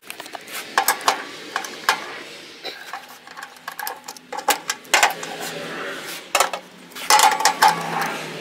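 A wrench clicking and clinking on the steel seat-bracket bolts of a riding mower as the seat is unbolted, in irregular metallic knocks with a denser run of clicks about seven seconds in.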